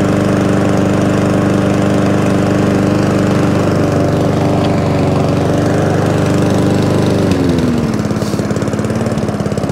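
McCulloch mower's RV150 single-cylinder engine running steadily at high revs with no hunting, its governor linkage and spring refitted. About seven seconds in, the revs drop and settle at a lower steady speed.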